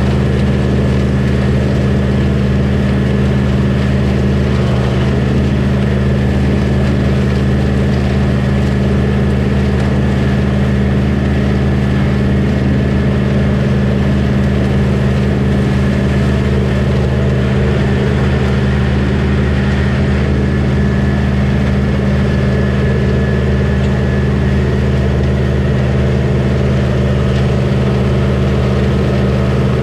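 Combine harvester's diesel engine running steadily at constant speed, a loud, even drone with no change in pitch.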